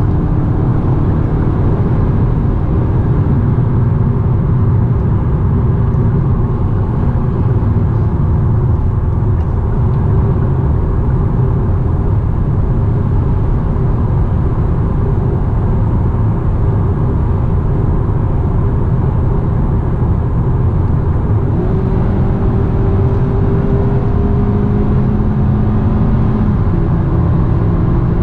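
Hyundai Sonata driving at a steady pace: a continuous low rumble of road and running noise, with a faint hum that strengthens near the end.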